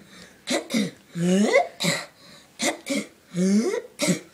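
Cough rap done with the voice: two quick coughs, then a drawn-out voiced "couuugh" that rises in pitch, then one more sharp cough. The pattern goes round twice, about every two seconds.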